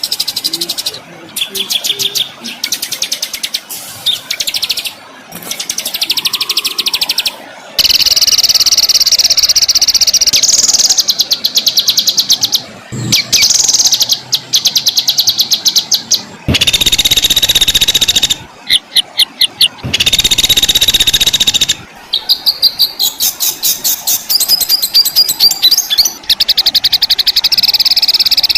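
Songbirds singing harsh, fast repeated notes and rolling trills, the 'shots' and 'rolls' of a masteran compilation for tutoring caged songbirds. The clips are spliced together, so the song stops and restarts abruptly many times.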